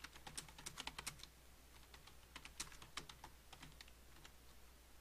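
Faint typing on a computer keyboard: two runs of quick key clicks with a pause of about a second between them.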